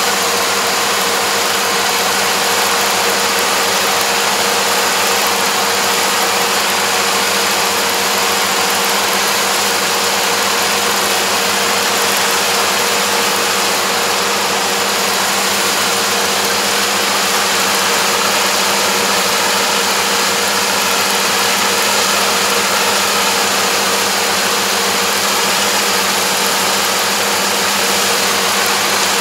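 An engine running steadily at constant speed: an even, continuous machine hum that does not change.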